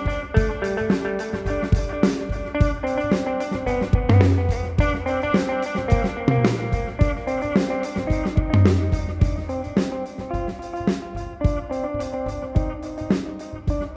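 Ambient electric guitar, a Fender Meteora played through an amp-modelling unit and a Fender Tone Master amp, ringing out sustained notes in a Celtic shuffle feel. Underneath it a steady drum beat, about three hits a second, with held low notes twice.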